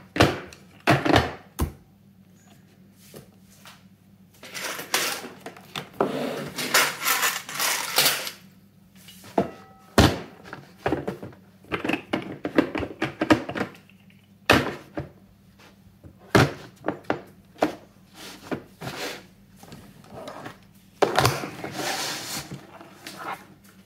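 Irregular knocks, clicks and thuds of objects being handled and set down on a hard surface, with short stretches of scraping or rustling between them. A steady low hum runs underneath from about two seconds in.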